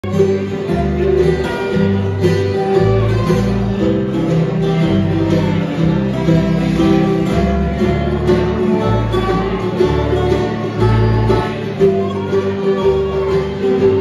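A bluegrass string band playing acoustic guitars and other plucked string instruments, a steady bluegrass gospel tune with a walking bass line.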